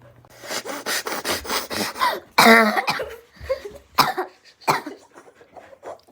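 A child making a funny noise with her voice: a quick run of raspy, breathy rasps like sawing for about two seconds, then a loud, short, wavering squeal, followed by a couple of sharp mouth clicks.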